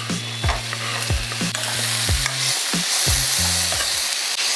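Chopped tomato, onions, garlic and green chillies sizzling in hot oil in a pan, stirred with a metal spatula. The spatula scrapes and strokes the pan over a steady frying hiss.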